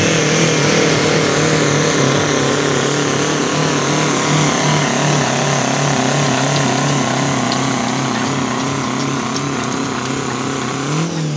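Mini rod pulling tractor's engine running hard under load as it drags a pulling sled, its pitch holding steady while the sound slowly fades.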